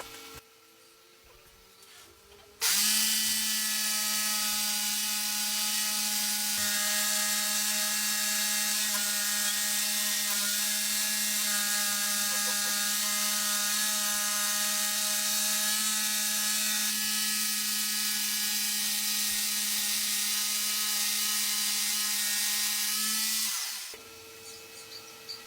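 A power tool's electric motor starts abruptly a few seconds in and runs at a steady speed for about twenty seconds with an even hum and a high hiss, then winds down.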